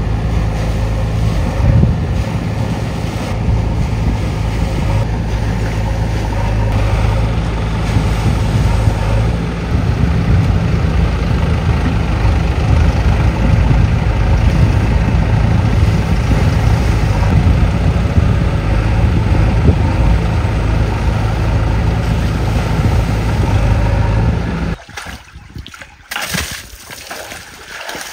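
Diesel engine of a heavy farm machine running steadily at a low pitch, cutting off about 25 seconds in.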